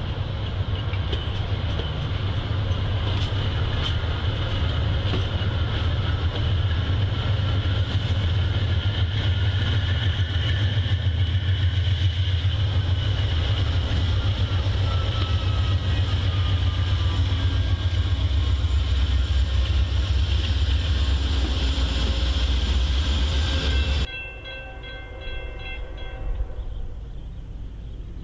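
Amtrak passenger train passing, with a loud steady low rumble from its wheels and GE Genesis diesel locomotives. The sound drops off suddenly about 24 seconds in to a much quieter background with a few short repeating tones.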